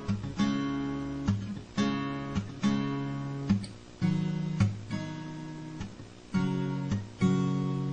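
Background music: an acoustic guitar strumming chords, a fresh strum roughly every half second to a second, with no singing.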